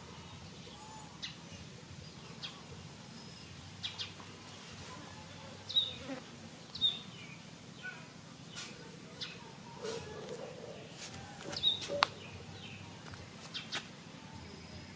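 Outdoor ambience: a steady high-pitched insect drone, with short bird chirps now and then and a few sharp clicks.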